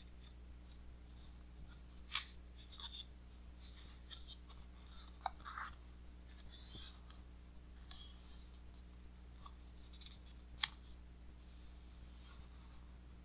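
Faint handling of a large hardcover book's heavy pages: soft paper rustling as a page is turned about halfway through, with a few sharp clicks and taps scattered around it.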